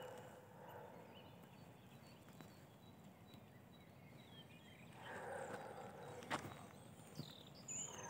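Faint footsteps on a dirt path with a few faint, high bird chirps; the steps grow more audible about five seconds in, with a sharp click shortly after.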